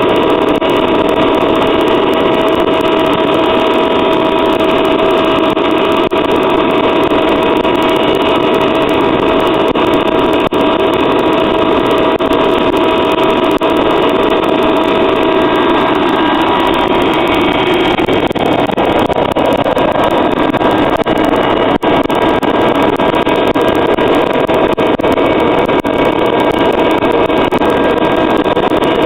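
Waste oil burner firing a furnace on used motor oil thinned with kerosene, burning steadily: a loud continuous rushing noise with a few steady tones over it, which shifts slightly a little past halfway.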